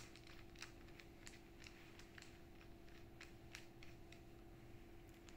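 Near silence with faint, irregular clicks as an orange RAC V tip guard is handled against the metal head of a Graco Contractor airless spray gun, over a steady low hum.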